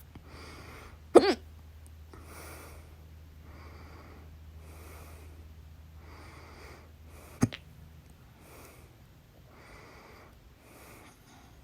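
Loud hiccups: two sharp, voiced hics about six seconds apart, the first about a second in. Audible breathing in and out runs between them.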